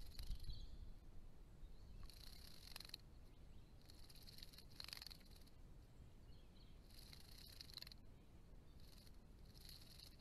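Faint splashing of Diamond Firetails bathing in shallow pond water: four short bursts of splashing and wing-fluttering, each under a second, spaced about two seconds apart.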